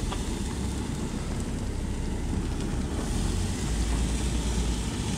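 Steady hiss and low rumble of a gas grill running hot, at about 350 to 400 degrees, with a few faint crackles.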